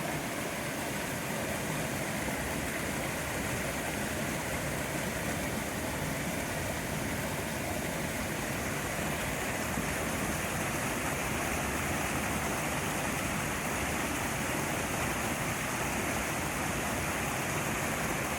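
Running water making a steady, even rushing sound.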